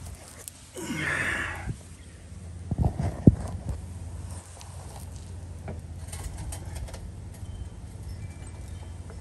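A few sharp metal knocks and clanks about three seconds in, from work on a truck's rear suspension with a floor jack under it. A brief rustle of handling comes before them and faint clicks follow, over a low steady hum.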